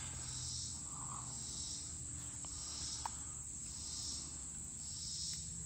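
Insects, crickets or katydids, chirping in a steady rhythm, a high pulse about every two-thirds of a second, with a few faint clicks.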